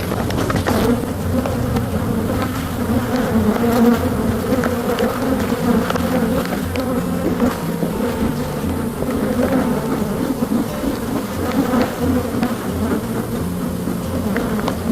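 Honey bee swarm buzzing loudly around an opened hive: a dense, steady hum whose pitch wavers as many bees fly at once. A few light knocks sound through it.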